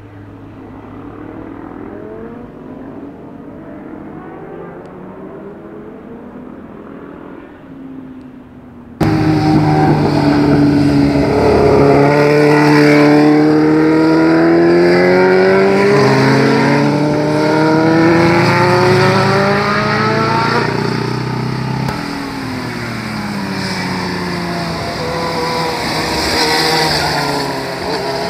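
Sport motorcycle engines on a hairpin road. For the first nine seconds a fainter, muffled engine sound; then a sudden cut to a loud motorcycle engine accelerating out of the bend, its pitch climbing for about ten seconds. Near the end another bike's engine comes through.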